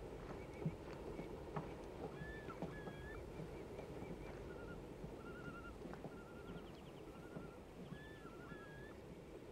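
Faint outdoor ambience of small birds chirping in short, wavering calls and trills, over a low steady haze. Scattered light knocks come from crawling on the wooden ties of a railroad trestle.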